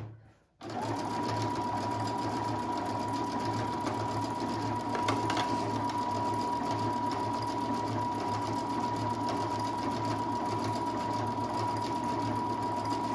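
Brother Innov-is 200 computerised sewing machine running at an even speed as it sews out a stitch program, with a steady motor whine. It starts about a second in and stops near the end.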